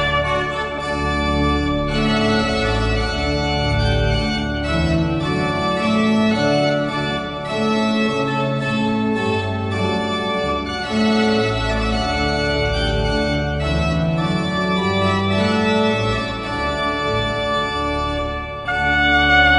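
Organ music: held chords over a bass line that changes note every second or two. About a second before the end the music turns suddenly louder and brighter, with brass coming in.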